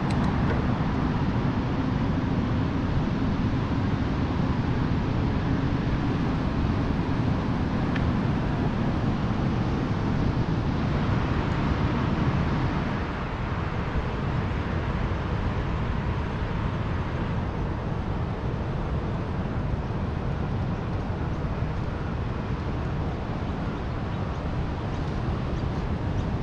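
Steady outdoor noise heard while riding an electric mountain bike: a low rumble with a hiss above it, easing a little about halfway through.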